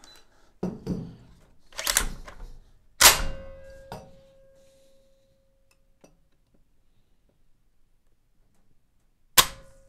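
Beretta 1301 Comp Pro semi-auto shotgun being reset and dry-fired for a trigger-weight test. About three seconds in there is a loud metallic clack, with a ringing tone that lasts a couple of seconds as the action is cycled. Near the end, after a quiet stretch, comes one sharp click as the trigger breaks under the digital trigger gauge's pull.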